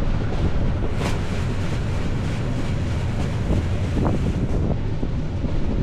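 Wind buffeting the microphone: a steady, low rumble, with a short knock about a second in and another about four seconds in.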